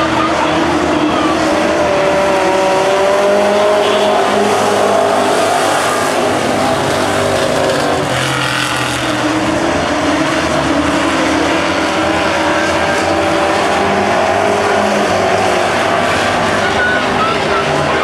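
Several dirt-track street stock race cars running together, their engine notes overlapping and rising and falling as the cars go through the turns and past.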